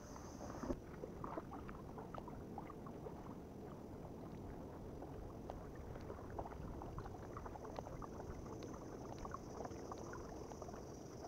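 Kayak paddle strokes in calm water: soft splashes and scattered drips. A faint, steady high insect drone sits behind them.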